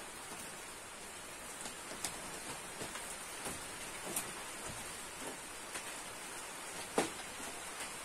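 Light knocks and taps of bamboo as a bamboo sofa is handled and bare feet cross a bamboo slat floor, over a steady hiss. One sharper knock comes about seven seconds in.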